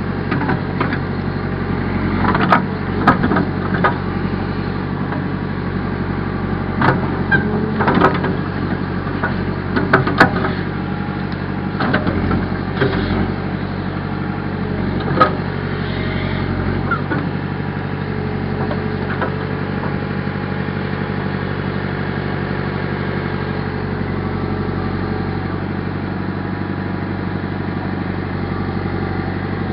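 Backhoe engine running steadily, with a string of sharp clanks and knocks through the first half.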